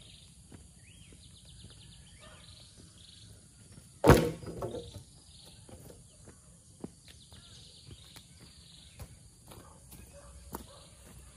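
A bundle of wooden poles dropped onto bare dirt: one loud thud about four seconds in, followed by a short clatter as the poles settle. Insects chirp in repeated high trills in the background.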